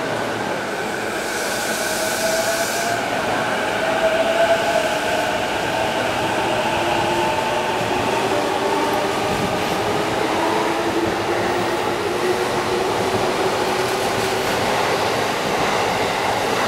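JR Keihin-Tohoku Line electric commuter train pulling out and accelerating past along the platform: the traction motors' whine rises slowly in pitch over steady wheel-on-rail rumble. A brief hiss about two seconds in.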